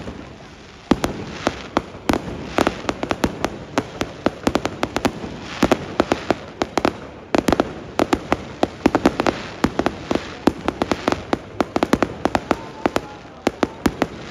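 Fireworks going off: a dense, irregular string of sharp bangs and crackles, several a second.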